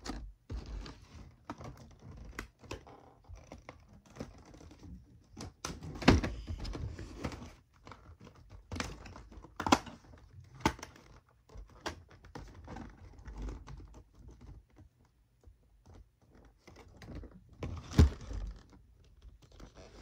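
Toy packaging being handled and pried at by hand: irregular clicks, taps and knocks, with a few sharper knocks about six, ten and eighteen seconds in.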